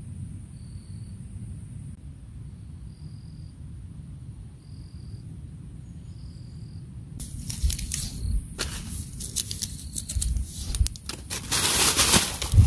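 Insects chirping in short, evenly repeated calls over a low background; then, from about seven seconds in, a plastic rubbish bag crinkling and rustling as it is handled, loudest near the end.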